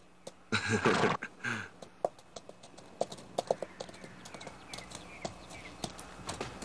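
Horses' hooves clopping unevenly as the horses are brought to a halt and their riders dismount. A brief loud call comes about half a second in.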